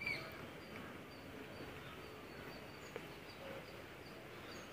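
Quiet outdoor background with small birds chirping faintly in a steady, repeated pattern, and a single faint click about three seconds in.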